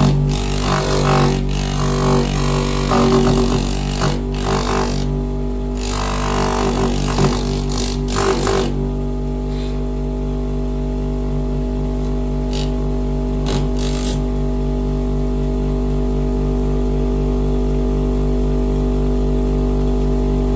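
Electric motor of a bench grinder converted to a disc sander, running with a steady droning hum. Irregular noisy bursts sit on top of the hum for about the first half, then it runs on alone with a few brief clicks.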